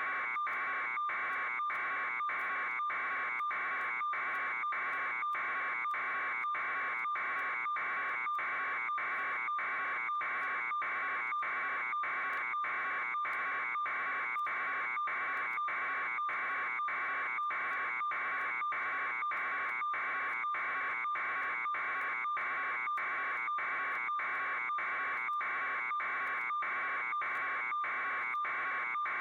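Harsh electronic buzzing tone, pulsing evenly somewhat under twice a second without a break.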